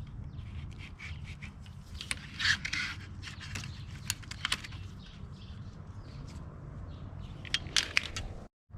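Scattered clicks and scrapes of bicycle parts and hand tools being handled during a teardown, over a steady low hum. A louder scrape comes about two and a half seconds in, and a quick cluster of clicks near the end.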